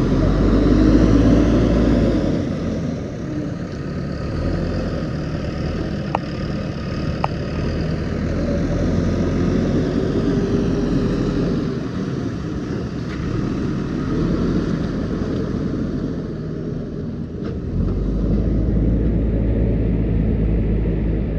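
JCB 3DX backhoe loader's diesel engine running under varying load, its level swelling and easing, loudest at the start and again near the end. Two sharp clicks about a second apart, some six seconds in.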